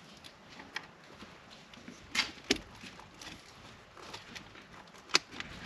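Scattered sharp clicks and knocks of wiring-harness plugs being pushed into the back of a double-DIN car stereo. The loudest come about two seconds in, at two and a half seconds, and a little over five seconds in.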